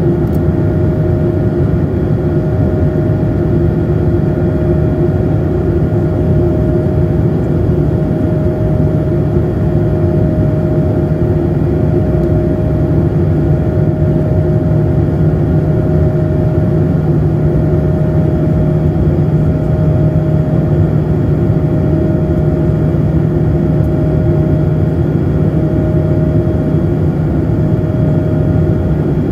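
Airliner cabin noise during the climb after takeoff: the steady drone of the jet engines and rushing air, loud and unchanging, with a constant hum of a few tones over a low rumble.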